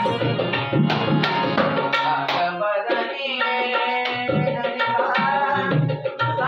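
Dholki, a two-headed barrel hand drum, played in a lively rhythm under group singing of a Marathi devotional-style song. The drum drops out for a moment about three seconds in, leaving the voices, then comes back.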